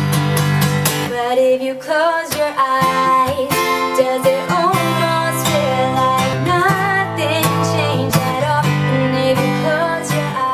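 Background music: a strummed acoustic guitar with a voice singing over it.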